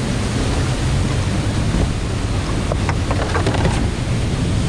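Whitewater river rushing, a loud, even noise with a heavy low rumble, and a few sharper splashes about three to four seconds in.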